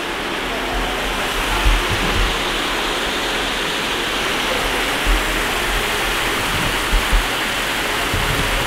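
Indoor waterfall rushing steadily, an even hiss of falling water, with a few low thumps along the way.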